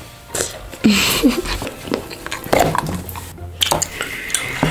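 Molded chocolate being bitten and snapped apart, with a run of sharp cracks and crunching chews.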